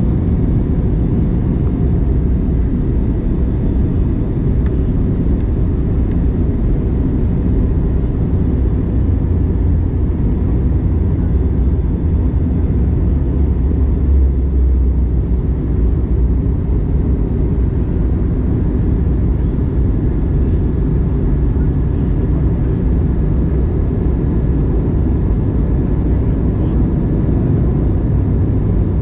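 Steady cabin noise of an Airbus A321neo airliner descending on approach: a constant low rumble of engines and airflow, heard from inside the cabin.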